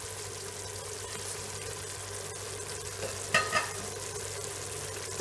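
Goat tripe curry cooking in a metal pot on the stove, a steady sizzle, with two short clinks about three and a half seconds in.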